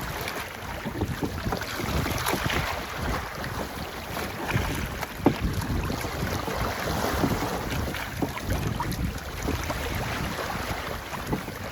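Wind buffeting the microphone with water splashing and rushing, aboard a sailboat under way. A single sharp knock about five seconds in.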